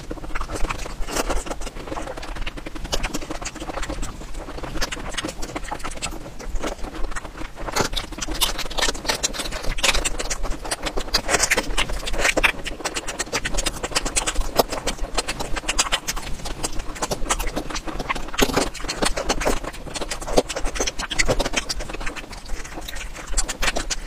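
Close-miked chewing and crunching of food, a dense run of crisp clicks and crackles.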